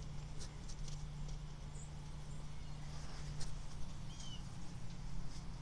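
Outdoor ambience: a steady low hum with scattered small clicks and a couple of short bird chirps, one about four seconds in.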